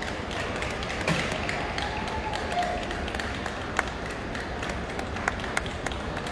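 Steady hubbub of a large indoor show hall, with scattered sharp taps and a faint distant voice.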